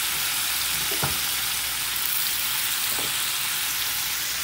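Chicken frying in a pan as cut potato sticks are tipped in: a steady sizzle, with a faint knock about one second in and another about three seconds in.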